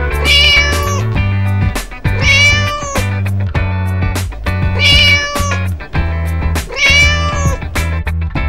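A cat meowing four times, evenly spaced, each meow rising and then falling in pitch, over background music with a steady beat.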